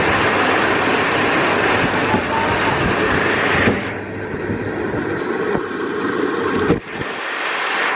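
Heavy rain falling as a steady dense hiss; a little before halfway the hiss abruptly loses its highest part and carries on duller.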